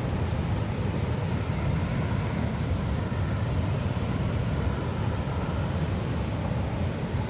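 Steady rushing noise of a river in flood, a continuous low rumble of fast water with no breaks.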